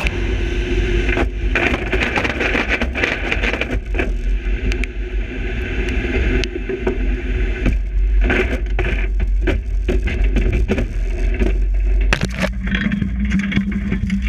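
Racing jet boat running at speed on a river: engine and water noise with heavy, irregular wind buffeting on the microphone.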